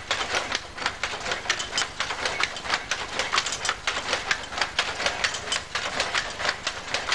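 Textile mill machinery running with a rapid, regular clacking of about five clacks a second over a low mechanical hum.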